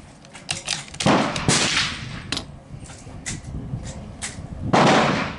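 Shots from a CZ 457 bolt-action .22 LR rifle: a sharp report about a second in and another near the end, each with a short decaying tail, with lighter sharp clicks between.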